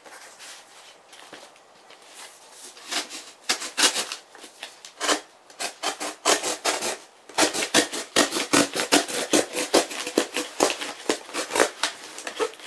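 Corrugated cardboard crackling and creaking as a flattened box is bent and pressed along its folds: a rapid string of sharp crackles that starts a few seconds in and grows denser about halfway through.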